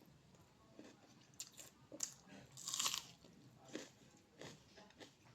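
A person eating close to the microphone, biting and chewing crunchy food in scattered crunches and mouth clicks; the loudest is a longer crunch about halfway through.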